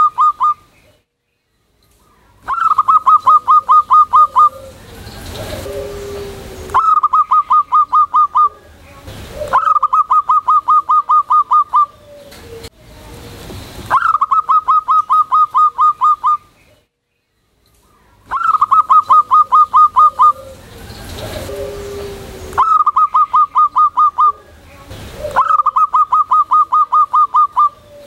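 Zebra dove (perkutut) singing loudly: its staccato cooing song, phrases of about a dozen quick coos at roughly six a second, each phrase about two seconds long, repeated about seven times with short pauses. Softer, lower sounds fill some of the gaps between phrases.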